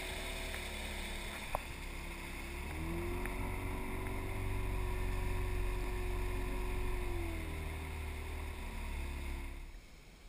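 Yamaha 25 hp outboard motor running with the boat under way, a steady drone over a low rumble. Its pitch climbs about three seconds in, holds, and eases back down after about seven and a half seconds. The sound falls away sharply near the end.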